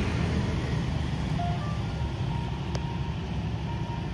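A faint electronic jingle of single notes from a street vendor's cart, sounding over a steady low rumble of passing motorcycle traffic.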